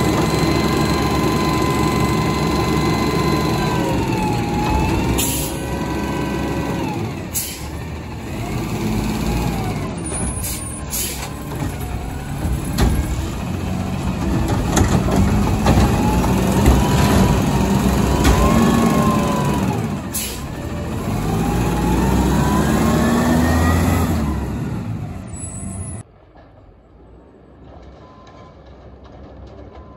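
Autocar ACX garbage truck with a McNeilus Meridian front-loader body working: the diesel engine revs up and down several times to drive the hydraulics, with a whine that rises and falls in pitch as the loader arms work, and a few short air hisses. Near the end the sound drops suddenly to a much quieter, distant truck hum.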